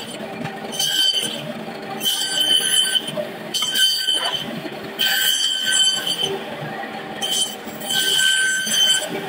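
Meat band saw cutting through large fish and its backbone: a steady motor hum with a high, ringing squeal each time the blade bites, about six cuts.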